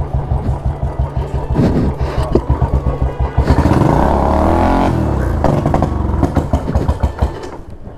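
Royal Enfield Bullet's single-cylinder engine thumping, then revved hard about three and a half seconds in, the revs rising and falling over a second or so, as the petrol-soaked rear tyre burns and spins in a burnout.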